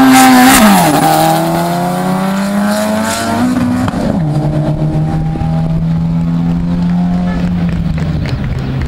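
Drag-racing cars accelerating hard down the strip, the engine note climbing and then dropping sharply at gear changes, once about half a second in and again near four seconds, then holding fairly steady.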